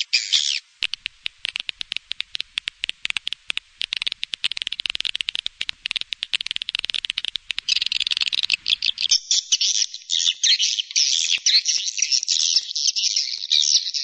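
Edible-nest swiftlet calls in a swiftlet-house lure recording: a fast run of sharp clicks gives way about eight seconds in to dense, high-pitched twittering chirps.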